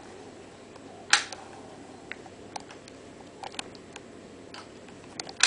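Scattered clicks of a hotel room telephone's buttons being pressed while dialing, with one sharper click about a second in and another near the end.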